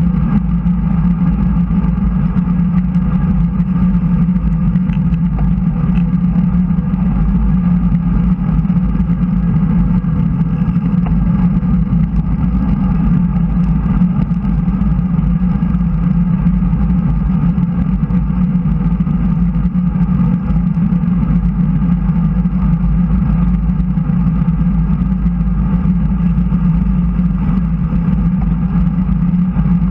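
Steady rush of wind and tyre rumble on a bike-mounted action camera as a road bike rides at around 34 km/h over smooth track asphalt, with a constant low hum underneath.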